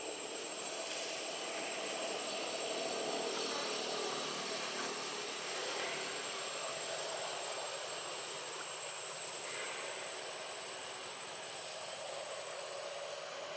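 Steady hiss of outdoor background noise, even throughout, with no calls or sudden sounds.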